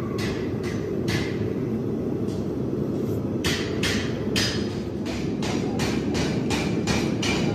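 Hammer strikes: a few scattered blows, then from about halfway a steady run of roughly three a second, over a steady low rumble.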